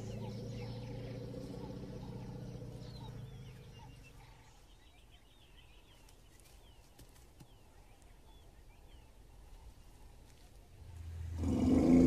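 Faint birds chirping over a low steady hum that fades away within the first few seconds. About eleven seconds in, a sudden loud elephant trumpet breaks out, the elephant blaring at a lion cub that came too close.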